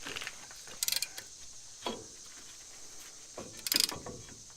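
Ratcheting brake pad spreader clicking in two short bursts of rapid ratchet strokes, about a second in and again near the end, as it forces a disc brake caliper piston back into its bore.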